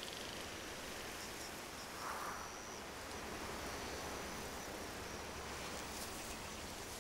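Summer meadow ambience: a steady soft hiss with faint, intermittent high insect trills, and a short soft sound about two seconds in.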